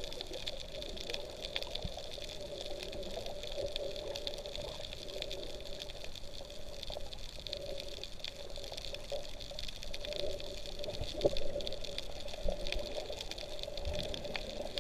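Underwater sea ambience heard through a GoPro's waterproof housing: a steady muffled hum with scattered faint clicks and crackles.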